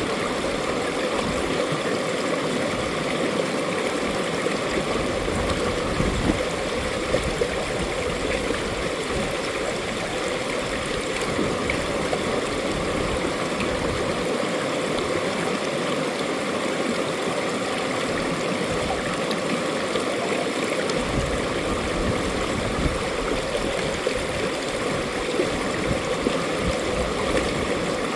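Mountain stream flowing over rocks, a steady, unbroken rush of water.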